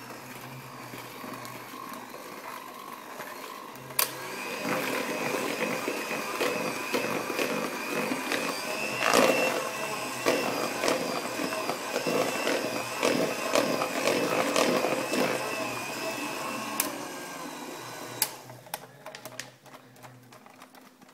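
Electric hand mixer running in a bowl of thick cake batter, mixing in cocoa powder. Its steady motor sound gets louder after a click about four seconds in, and it cuts off with a click about eighteen seconds in.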